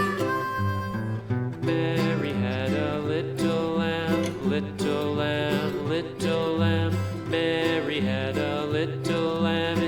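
Background music: a country-style tune with acoustic guitar.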